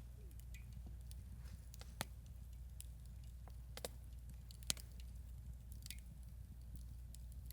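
Wood campfire crackling: irregular sharp snaps and pops, roughly one a second, over a low steady rumble.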